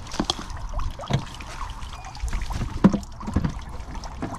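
Whitebait net being handled in the river: irregular knocks and clunks with water sloshing around the net.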